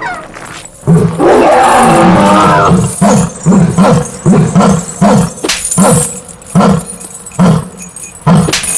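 A long, loud, wavering roar starts about a second in, followed by a run of short, deep beats at about two a second.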